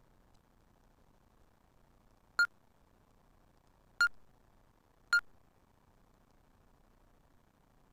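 Electronic soft-tip dartboard machine beeping three times, short sharp electronic beeps about a second and a half, then a second, apart, as its menu buttons are pressed to step through the post-game screens.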